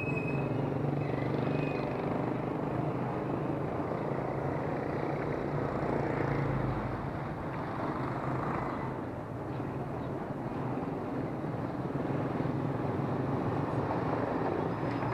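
Steady street-traffic noise with the low, even hum of a running vehicle engine.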